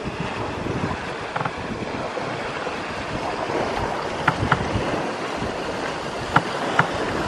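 Wind rushing over the microphone and water washing along the hull of a sailboat under way. A few short sharp ticks stand out in the second half.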